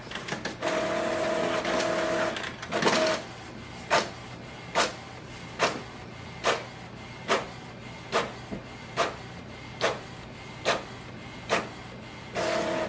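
Epson Expression Photo XP-970 inkjet printer printing a page. A steady motor whir runs for about two seconds, then sharp clicks come evenly about once a second, and a short whir returns near the end as the sheet comes out.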